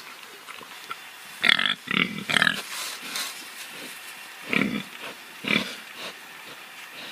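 Domestic pigs grunting: a quick run of three loud grunts about a second and a half in, then a few softer, spaced grunts later on.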